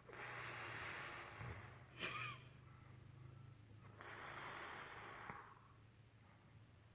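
A sleeping person snoring: two long, noisy breaths about four seconds apart, with a short sharp sound about two seconds in.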